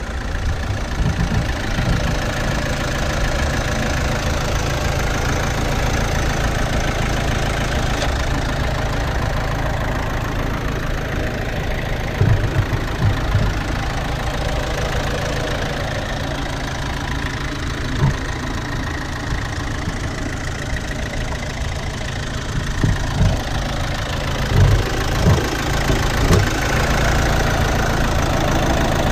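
Opel Mokka's 1.7 CDTI four-cylinder turbodiesel engine idling steadily, heard close up in the open engine bay, with a few brief low thumps.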